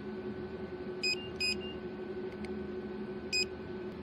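Touchscreen control panel of a slimming beauty machine beeping as the laser intensity is stepped up: three short, high beeps over a steady hum.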